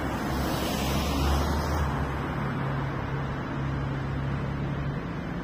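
A car passes close by about a second in, its tyre hiss rising and falling over a steady low engine hum.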